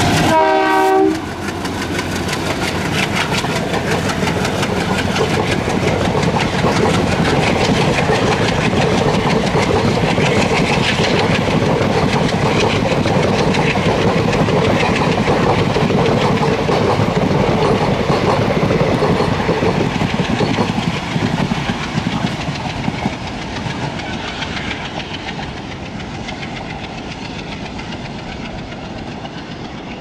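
WDG3A ALCO diesel locomotive sounding its horn, which cuts off about a second in, then the locomotive chugging and its passenger coaches rolling past with a clickety-clack of wheels over the rails. The sound fades after about 20 s as the train moves away.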